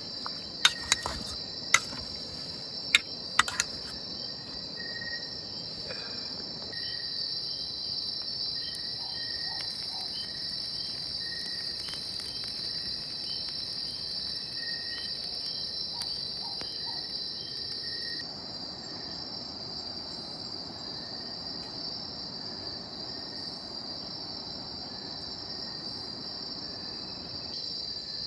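A steady high-pitched insect chorus, with several sharp knocks in the first few seconds.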